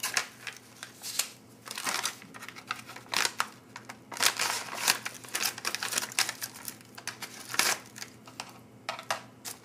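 An MRE shortbread cookie pouch of stiff plastic-foil laminate being handled, slit open with a pocket knife and its inner wrapper pulled out: a run of irregular crinkles, rustles and scrapes.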